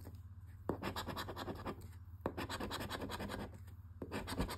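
Coating of a Christmas Delight instant scratch lottery ticket being scraped off with a hand-held scratcher: rapid scraping strokes in short runs with brief pauses, and two sharper clicks in between.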